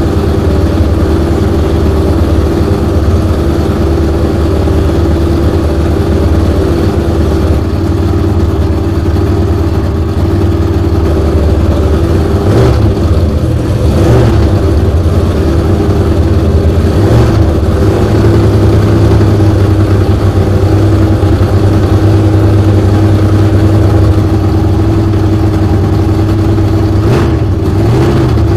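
The supercharged, methanol-fuelled 430 ci big-block V8 of the Hudson Terraplane land-speed car running steadily at idle, with a few brief louder moments.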